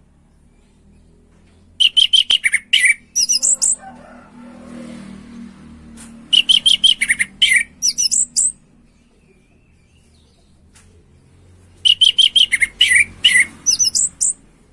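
Orange-headed thrush in full song after its moult: three phrases of rapid, high whistled notes, each about two seconds long, about four to five seconds apart.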